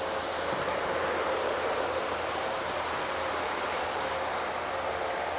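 Model trains running on the layout track: a steady running noise with a faint steady hum.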